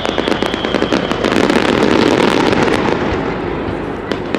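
Aerial fireworks: a whistle sliding slowly down in pitch fades out about a second in, then a dense mass of crackling pops builds to its loudest around the middle and thins out, leaving a few separate pops near the end.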